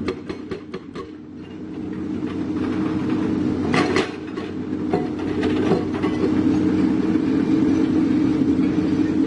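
Hydraulic breaker on an excavator hammering rock: a fast run of sharp blows in the first second, then more knocks about four, five and six seconds in, over the machine's diesel engine running steadily.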